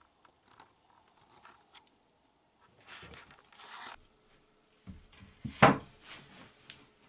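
A wooden board rubbing and sliding across a 2x4 wood frame, then knocking down into place with a few wooden knocks, the loudest about five and a half seconds in.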